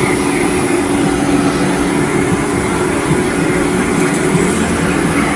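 Police cruiser's engine idling close by: a steady, unchanging low hum.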